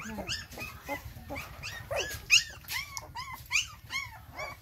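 Young puppies whining and yelping: short, high-pitched cries that rise and fall, about two or three a second.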